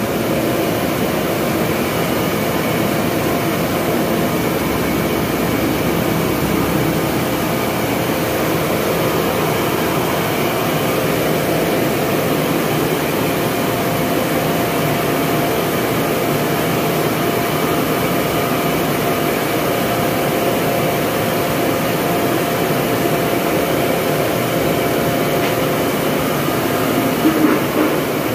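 Corn grinding mill running steadily while it turns corn into grits: a loud, even mechanical drone with a few faint steady hum tones.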